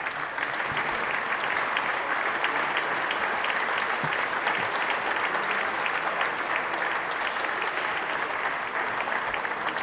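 Applause from many people clapping in a large chamber, starting sharply at the close of a speech and going on at a steady level.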